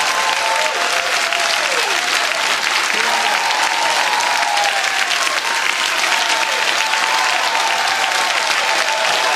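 A theatre audience clapping steadily, with a few voices calling out and whooping over the applause.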